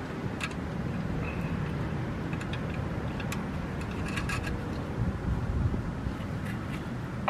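Scattered light metallic clicks and clinks of hand tools working a jam nut and bracket on an automatic transmission's shift linkage, a small cluster of them about four seconds in, over a steady low rumble.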